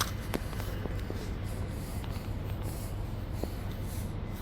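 Fairground-site ambience: a steady low hum under a rustling hiss, with a few light clicks.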